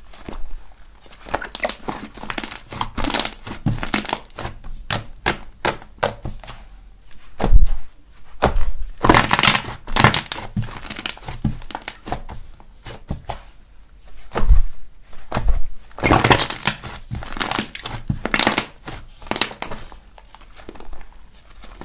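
Slime being squeezed and pressed by hand close to the microphone, giving runs of crackles and sharp pops, with a couple of deeper thuds.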